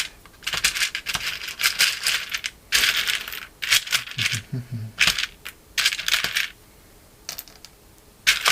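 Small keyboard stabilizer parts, plastic housings and wires, clicking and rattling against each other and the desk as they are picked through and handled, in several short bursts with brief pauses between.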